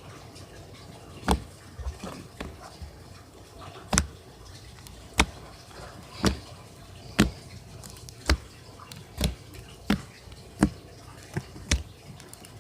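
Homemade slime being squeezed and worked by hand, giving sharp clicks and pops about once a second.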